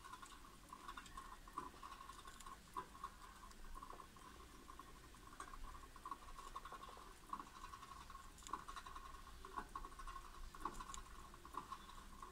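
Hamsters chewing food: faint, irregular small crunching clicks, several a second.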